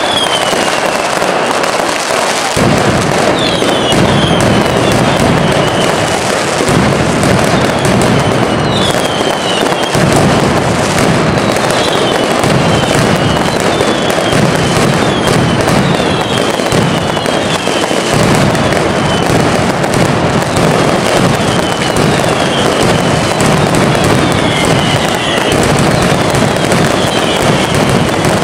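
Mascletà firecrackers going off in a dense, continuous rapid-fire crackle, with deeper bangs joining a couple of seconds in. Over it, short whistling fireworks glide downward in pitch again and again.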